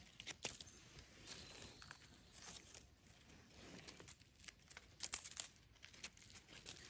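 Faint scraping and crackling as a knife trims the soil off the stem base of a freshly picked bolete mushroom, with dry leaf litter rustling. A few sharper clicks come about five seconds in.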